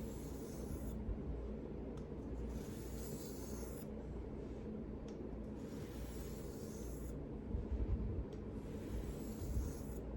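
Steel knife blade drawn across a fine-grit polishing whetstone in slow sharpening strokes, a soft scraping hiss that rises and fades with each stroke of about two seconds. A steady low hum runs underneath.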